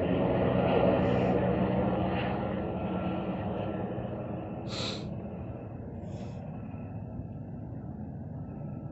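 Small quadcopter drone buzzing in flight, its propeller drone fading steadily as it moves away. A short hiss about halfway through.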